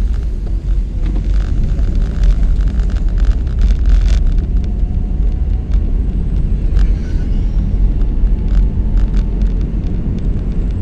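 An old car driving at steady speed, heard from inside the cabin: a steady low rumble of engine and tyres on the road, with scattered light clicks and ticks over it.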